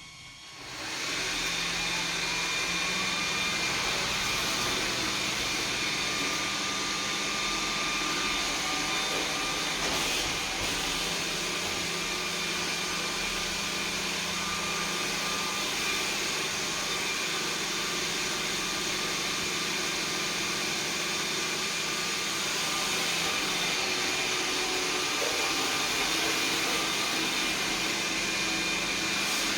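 iRobot Roomba S9+ robot vacuum running: its motor starts about a second in with a rising whine, then holds a steady whirring hum.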